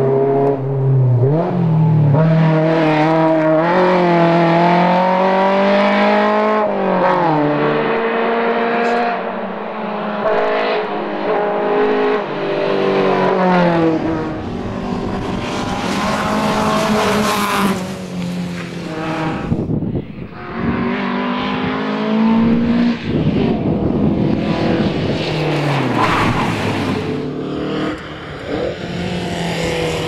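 1961 Volvo 122S rally car's four-cylinder engine revving hard as it drives past at speed. The pitch climbs through each gear and drops at every shift, several times over.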